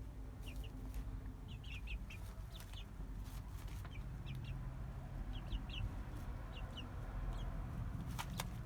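Chickens calling: short high chirps in quick twos and threes, repeated over a low steady rumble, with a couple of sharp clicks near the end.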